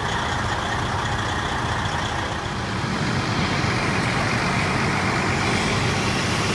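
Diesel engines of parked fire trucks idling: a steady low rumble under an even hiss.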